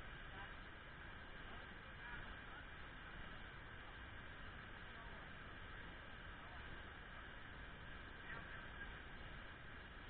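Small forest stream running over rocks, a faint steady rushing with a little camera-microphone hiss.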